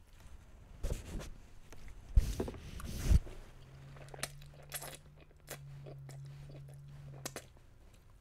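Close-up eating sounds: a metal fork knocks against a glass dish of Cajun chicken pasta three times, then noodles are slurped and chewed with small wet mouth clicks. A low steady hum, a closed-mouth 'mmm', runs under the chewing from about three and a half seconds in.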